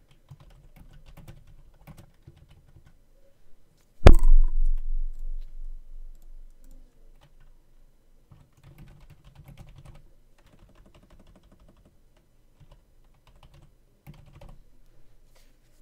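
Typing on a computer keyboard in short runs of key clicks. About four seconds in, one loud thump with a low rumble dying away over about three seconds.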